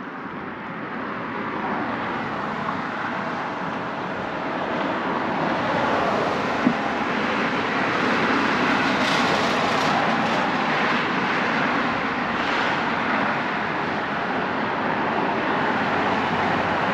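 Steady rushing of road traffic on the bridge, building over the first two seconds and then holding.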